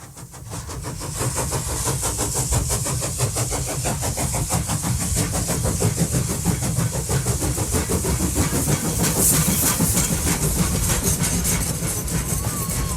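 Railway locomotive running under power, a rapid, even run of exhaust beats with hiss over it, swelling up over the first couple of seconds.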